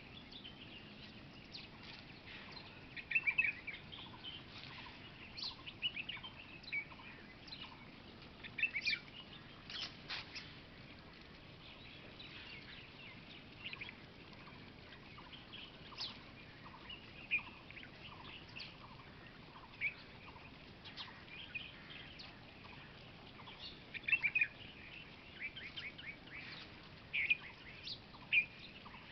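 Several wild birds chirping and calling in short, scattered phrases, with a few louder calls standing out every few seconds.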